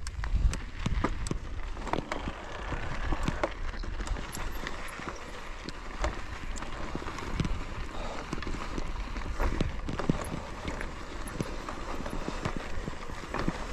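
Footsteps on a rocky trail, with irregular knocks and clatter over a steady rush of outdoor noise.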